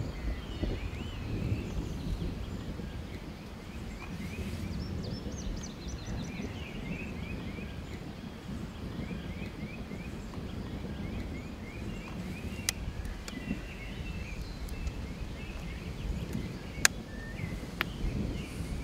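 Open-field ambience: a steady low wind rumble with birds chirping in short repeated phrases. Three sharp clicks come in the second half, the loudest a couple of seconds before the end.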